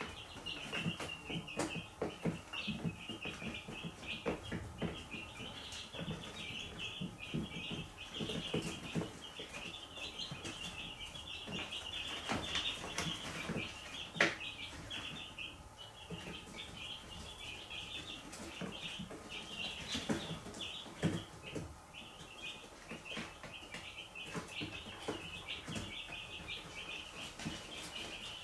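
A brood of young chicks peeping continuously, many short high chirps overlapping, with scattered taps and clicks, one sharper tap about halfway through.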